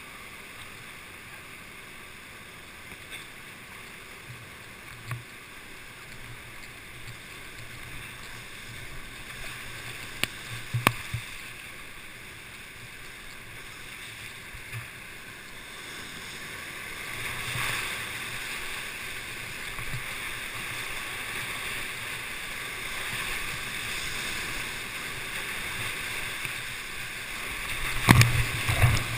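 Whitewater of a class V rapid rushing around a kayak, heard on a helmet camera; the rush grows louder about halfway through. There are two sharp knocks near the middle, and near the end a burst of loud splashing with heavy thumps as the water breaks over the camera.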